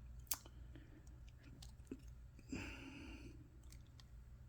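Faint handling of a Victorinox Swisstool multitool: one light click about a third of a second in and a few softer ticks as its tools are worked. A soft rustle comes about two and a half seconds in.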